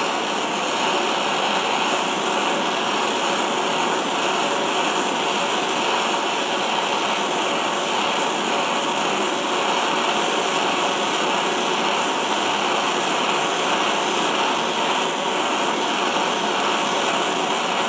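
Handheld propane torch burning with a steady hiss, its flame heating a pressed-on inner pinion bearing so that it swells and can come off the pinion.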